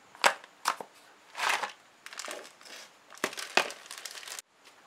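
Small cardboard figure box being opened and a clear plastic parts bag crinkling in the hands: a string of sharp crackles and rustles that stops abruptly a little before the end.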